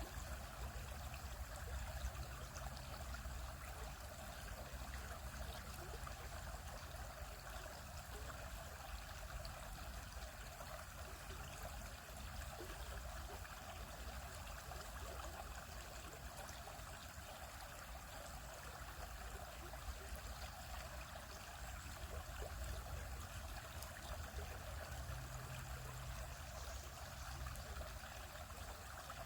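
Shallow stream flowing steadily over rocks, a continuous trickling and burbling of water.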